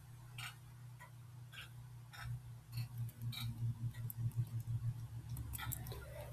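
Steady mechanical ticking inside a school bus cab, about three ticks every two seconds, over a low hum that grows louder and pulses from about two seconds in.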